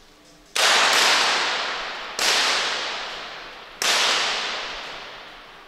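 Three .22 free-pistol shots, each a sharp crack followed by a long echo that dies away over about a second and a half, coming roughly every second and a half.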